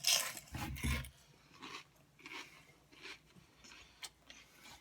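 Chewing crunchy food close to the microphone: a loud crunching stretch in the first second, then faint, scattered chewing clicks.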